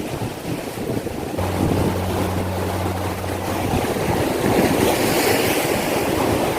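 Sea waves washing onto the beach, with wind buffeting the microphone. A steady low hum comes in about a second and a half in and lasts a couple of seconds.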